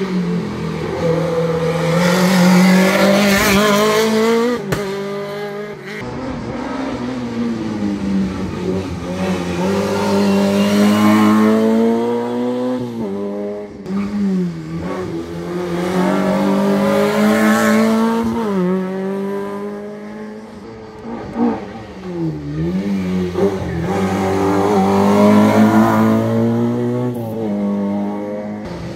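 Rally car engine running hard on the approach, its pitch climbing as it accelerates through the gears and dropping as it lifts and brakes for corners, several times over.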